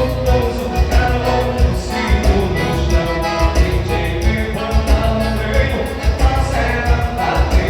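Upbeat music with singing and a steady, strong bass beat.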